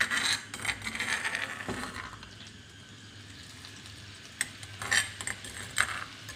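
A metal spoon scraping and clinking pounded garlic out of a stone mortar, then the garlic and a little water sizzling in a hot aluminium wok. A few sharp taps come near the end.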